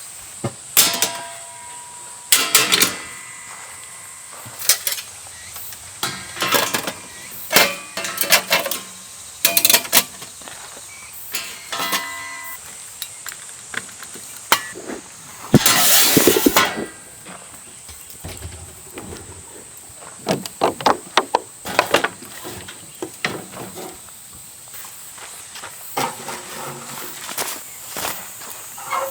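Irregular knocks, clinks and clatters of camping gear being handled, with a louder rustling scrape for about a second midway. A steady high insect drone runs behind.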